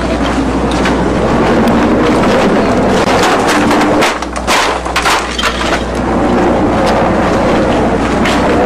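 A steady engine drone, with a short spell of cracking and crunching, like debris breaking, about four to five seconds in.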